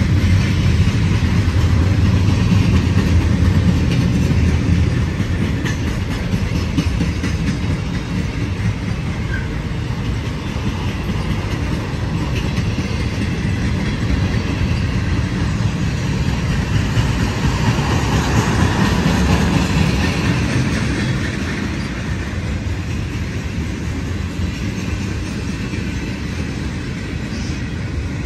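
Freight train cars rolling past at speed: a steady rumble and clatter of steel wheels on the rails, easing a little after the first few seconds.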